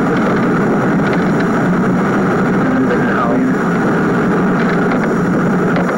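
Steady rumble and hiss of a car driving in heavy rain, heard from inside the cabin: road, engine and rain noise.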